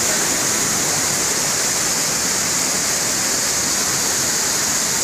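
Waterfall and a rocky mountain stream rushing, a loud, steady roar of falling and tumbling water close by.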